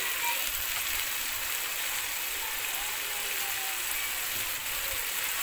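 Finely chopped onions sizzling steadily in hot oil in a karahi while a wooden spoon stirs them, as they are fried toward brown.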